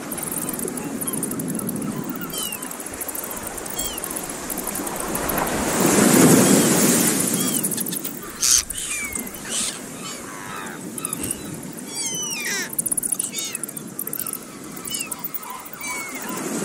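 Surf washing over a rocky shore, one wave swelling to its loudest about six seconds in, while birds give short, downward-sliding chirps that come more often in the second half. Two brief sharp hisses stand out around the middle.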